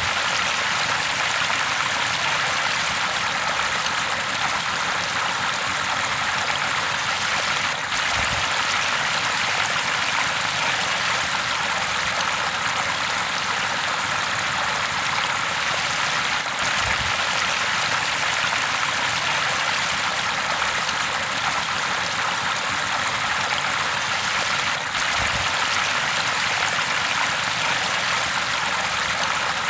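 River water flowing steadily over rocks: an even, unbroken rushing hiss.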